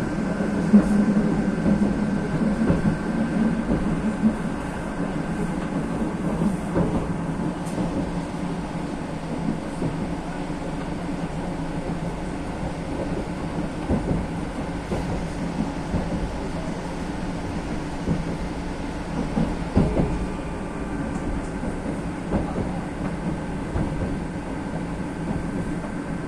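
Metro train running, heard from inside the car: a steady rumble of wheels on rails, with a few knocks from the track here and there.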